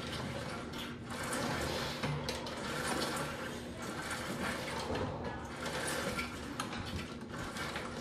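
Home cable gym machine worked through arm reps: the cable running over its pulleys and the handle moving make a continuous rushing whir that rises and falls with each pull.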